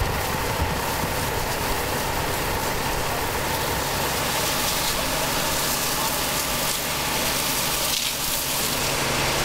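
Fire engines' engines running steadily at idle, under a continuous hiss.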